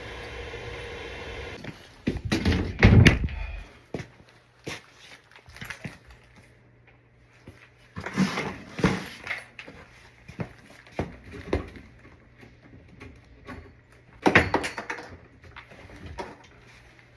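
A steady machine hum cuts off about two seconds in. It is followed by irregular knocks, thumps and clatter of tools and equipment being handled, with the loudest bangs around three seconds in, about eight seconds in and near the end.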